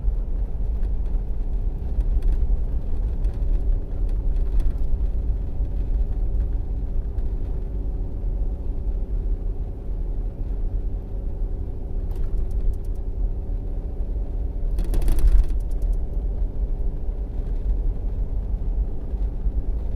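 Van driving on a snow-covered mountain road, heard from inside the cabin: a steady low rumble of engine and tyre noise with a faint engine drone, and a brief louder rush about fifteen seconds in.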